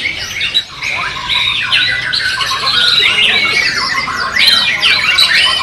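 Several white-rumped shamas (murai batu) singing at once in a song contest: a dense, loud tangle of rapid whistles, trills and harsh squawky notes from overlapping birds.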